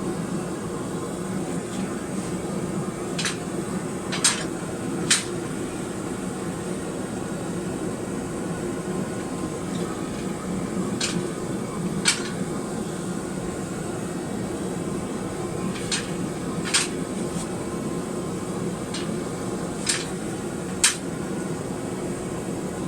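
Blacksmith's hammer striking hot steel on the anvil while straightening a piece, in short groups of two or three sharp taps a few seconds apart, over a steady fan-like hum.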